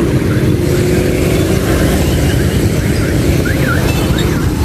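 Motorbike traffic running steadily at a road intersection, with engine noise close by.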